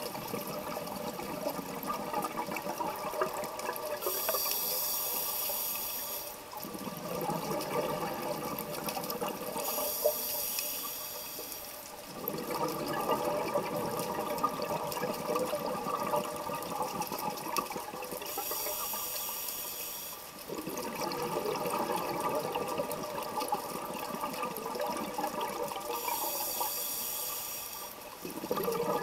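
Scuba diver breathing through an open-circuit regulator: a short hissing inhale of about two seconds alternates with a longer rush of exhaled bubbles, four breaths in all.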